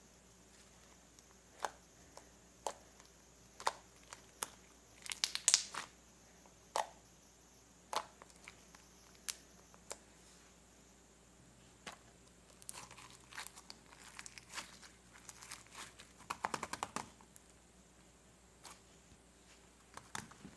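Scattered sharp clicks and taps with bursts of crinkling, like paper or plastic being handled, busiest about five seconds in and again from about twelve to seventeen seconds.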